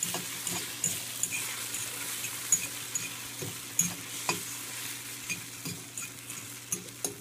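Beaten eggs sizzling in butter in a small wok while a fork stirs them briskly, the fork clicking and scraping irregularly against the pan.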